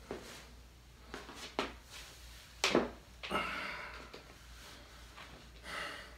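A few light knocks and steps, then a louder thump about two and a half seconds in as a man sits down heavily on a wooden chair, followed by softer shifting noise on the seat.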